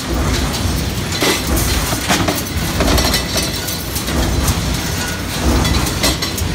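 Coil-fed metal stamping press line running, with a steady heavy machine drone and repeated irregular metallic clanks and clinks.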